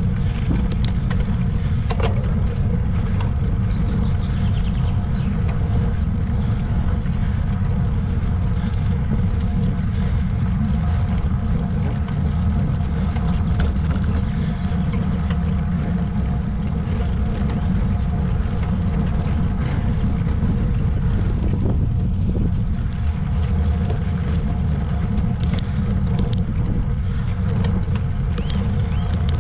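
Steady wind rumble on the microphone of a moving camera, with a faint steady hum above it and a few light clicks.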